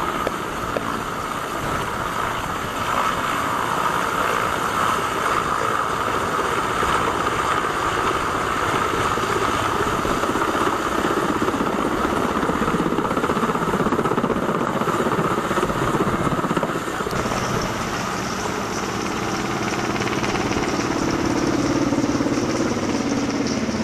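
Large military helicopter lifting off and climbing away: steady turbine whine and rotor noise. The sound changes about two-thirds of the way through as it passes overhead and moves off.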